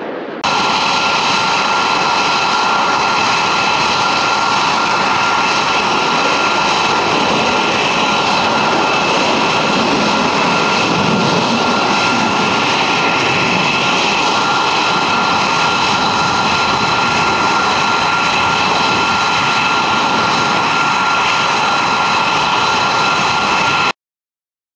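Jet engine running steadily at high power: a loud, even roar with a steady high whine over it. It starts abruptly and cuts off suddenly near the end.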